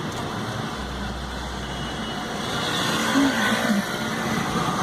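Road traffic: a steady hum of passing vehicles, swelling as one goes by about three seconds in.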